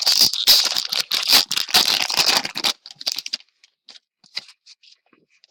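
A hockey trading-card pack wrapper being torn open and crinkled for nearly three seconds, a dense run of crackles, followed by a few faint rustles and ticks as the cards are handled.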